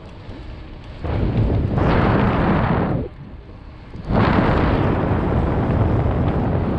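Wind buffeting the action camera's microphone on a moving mountain bike, a low rumble. It is quieter at first, loud from about a second in, drops away briefly around three seconds, then comes back strong.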